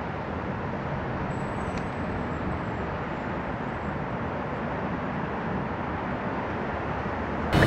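Steady, even roar of a distant jet airliner, a Boeing 787-8, on final approach, heard outdoors from far off and blended with general background noise.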